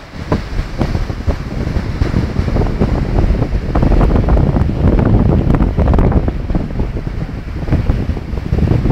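Wind buffeting the microphone in gusts over the wash of small waves breaking on the Caspian Sea shore; the gusts are strongest in the middle.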